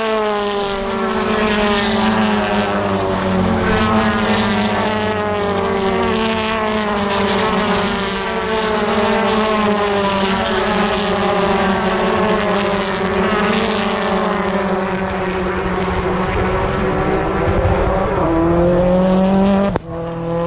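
A steady engine drone whose pitch slides slowly downward for most of the time; near the end a second engine rises in pitch, then the sound drops out abruptly.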